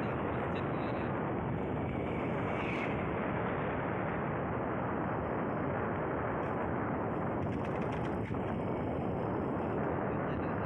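Steady rush of wind on the microphone mixed with the running noise of a moving vehicle, even and unbroken.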